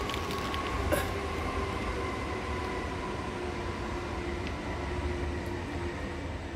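Steady low rumble and hiss with a few faint held hum tones above it, and a single short knock about a second in.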